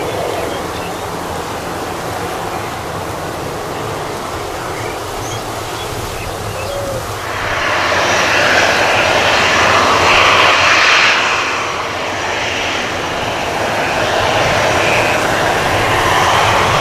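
Boeing 737-800 jet passing close by: its engine noise swells in about halfway through, is loudest a few seconds later and stays loud. Before it arrives there is a steady background hiss with a few faint bird chirps.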